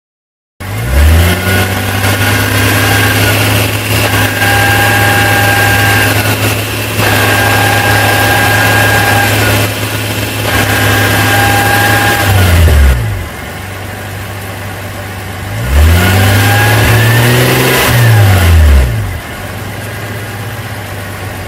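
Nissan ER34 Skyline running, with a thin steady high-pitched whine from its newly replaced manual transmission that comes and goes over several seconds. Near the end the engine revs up and falls back. The owner takes the whine, which stops when the clutch pedal is pressed, for noise from the gearbox itself rather than the mount or clutch.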